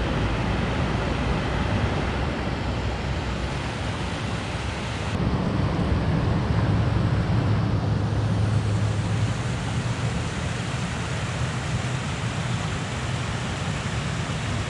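River rapids rushing over rocks: a steady, full noise of white water, with a low rumble from wind on the microphone.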